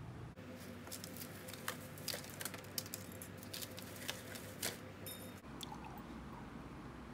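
A quick, irregular run of light clicks and taps, like small objects being handled, lasting about five seconds and starting and stopping abruptly.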